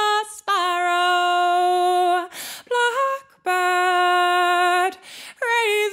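Unaccompanied female voice singing a folk song. She holds two long, steady notes with a short rising note between them, and takes a breath before each of the later phrases.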